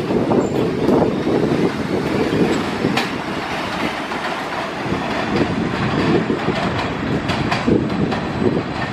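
Budd R32 subway train running along elevated track: a steady rumble of steel wheels on rail, with scattered sharp clacks.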